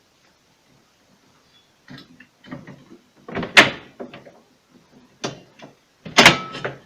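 Refrigerator drawer knocking and clattering against its rails as it is pushed onto its hooks: a few separate knocks starting about two seconds in, the loudest near the middle and just before the end.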